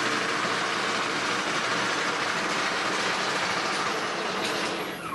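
Rapid-traverse drive of a 1K62 lathe carriage: the inverter-fed auxiliary feed motor and gearing running with a steady whir. Near the end it winds down with a falling whine as the motor is slowed to creep the cutter toward the workpiece.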